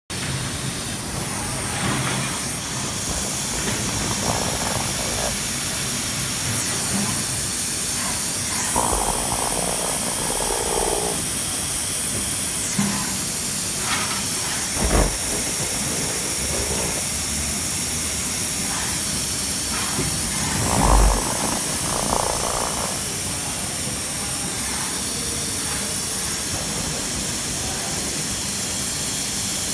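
Ultrasonic welding machine with an XYZ robot gantry running on a car door trim panel: a steady high hiss throughout, with two stretches of rougher mid-pitched noise and two short thumps, about halfway and two-thirds of the way through.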